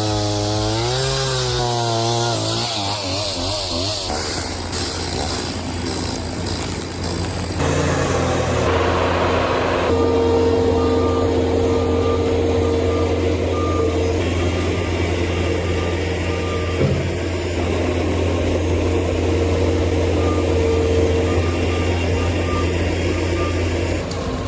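Skid steer engine running steadily, with its backup alarm beeping at an even pace for several seconds in the middle.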